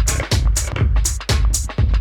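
Electronic dance music with a steady four-on-the-floor kick beat and crisp hi-hat hits.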